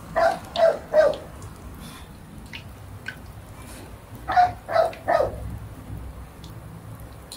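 A dog barks in two quick runs of three, one just after the start and another about four and a half seconds in. Between them runs the steady sizzle and bubbling of wonton wrappers deep-frying in oil.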